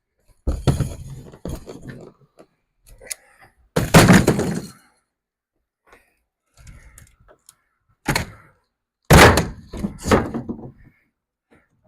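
Wooden shipping crate being dismantled: boards cracking as they are pried loose and landing with loud wooden thunks, about five heavy hits with smaller clatters between.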